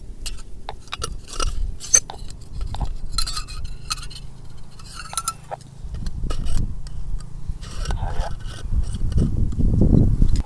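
Small brass alcohol burner being handled and taken apart: its screw cap and metal parts clink and scrape in a string of short, light ticks.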